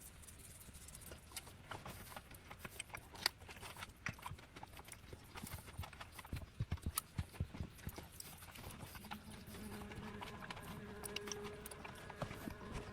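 Scattered light knocks and taps, with a cluster of dull thumps about halfway through; a faint steady hum comes in during the last few seconds.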